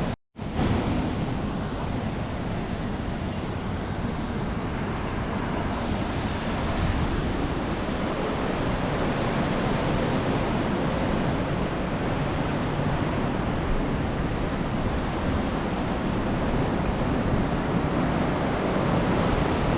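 Hurricane-force wind blowing hard and steadily into the microphone, after a momentary cut-out just after the start.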